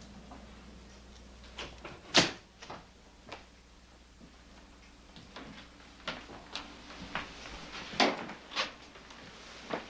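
A door being worked, with a string of scattered knocks and clicks; the sharpest knock comes about two seconds in, and a cluster follows in the last few seconds.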